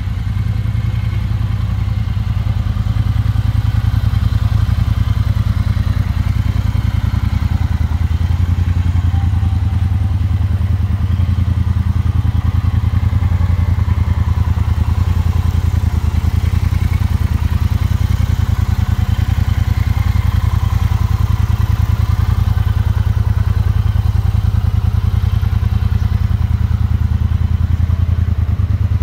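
Triumph Bonneville Bobber Black's 1200 cc parallel-twin engine idling steadily at a low, even pitch, with no revving.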